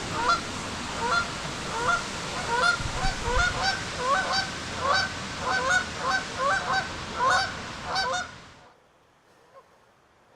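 Repeated honking bird calls, one or two a second, over a steady rushing hiss. All of it cuts off abruptly about three-quarters of the way through, leaving near silence.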